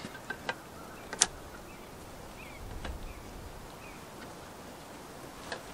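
Quiet outdoor background with a few sharp light clicks and a soft low thud, and faint short bird chirps in the distance.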